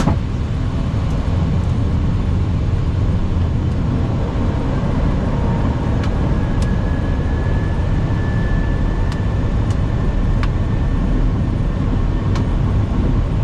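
Steady low rumble of airflow and air conditioning in an Airbus A320 cockpit in flight. A faint steady tone sits in it through the middle, and there are a few faint clicks.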